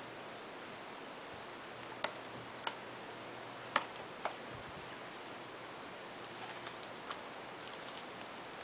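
Four sharp plastic clicks as a DVD case is handled, then light crinkling of shrink-wrap plastic near the end, over a steady hiss.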